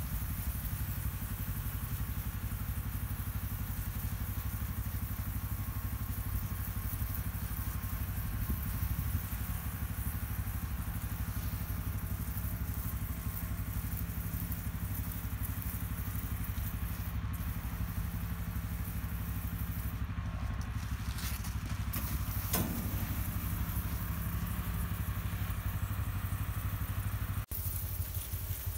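Steady motor drone of a powered sprayer running, with the hiss of liquid misting from a spray gun onto a fan housing. The sound cuts out briefly near the end.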